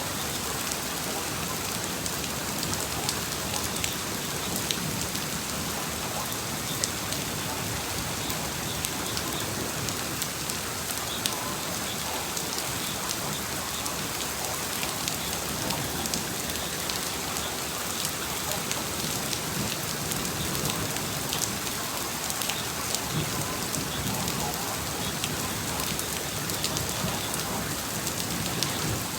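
Heavy rain pouring steadily, with frequent sharp ticks of drops striking a hard surface.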